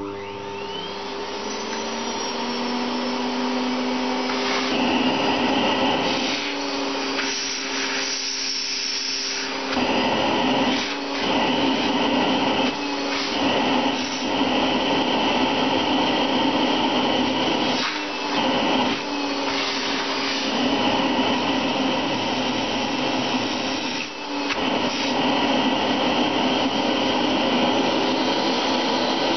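Vacuum cleaner switching on and running with a steady motor whine over a rush of air. The sound dips and shifts briefly every few seconds.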